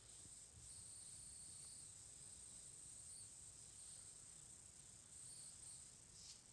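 Near silence: room tone with a faint, steady high-pitched hiss.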